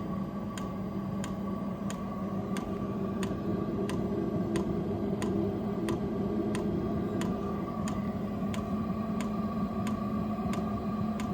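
Vevor diesel air heater running after ignition, its fuel dosing pump clicking evenly about one and a half times a second over the steady hum of the combustion blower as it warms up.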